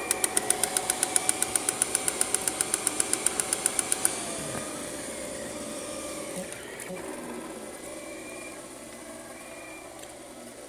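3D printer at work: a fast, even ticking from its moving print head, about eight ticks a second, over a steady motor whine. The ticking stops about four seconds in, leaving a quieter steady whine and fan hum.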